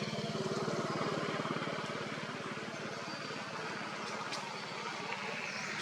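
A motor engine running steadily with a fast low throb, over a wash of outdoor noise.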